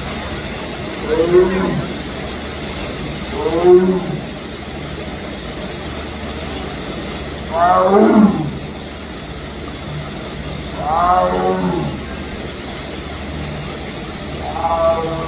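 Sumatran tiger calling five times, a few seconds apart; each call is a loud moaning roar about a second long that falls in pitch.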